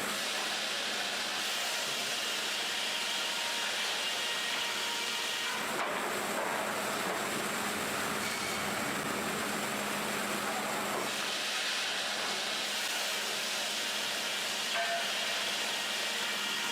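Sawmill machinery running: a steady hiss-like mechanical noise over a constant hum, changing abruptly a couple of times.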